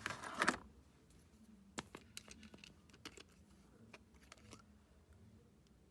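A fork beating eggs and vanilla essence in a bowl: rapid clicking of the fork against the bowl stops about half a second in, followed by a few scattered light taps.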